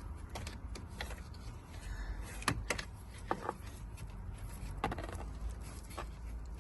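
Scattered clicks and knocks, about half a dozen, from a part being worked loose by hand during an ignition switch replacement, over a steady low hum.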